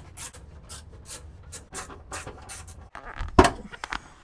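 Hand screwdriver backing a fastener out of a car's plastic underbody panel, a regular rasping scrape with each turn. A single louder knock comes a little past three seconds in, followed by a few light clicks.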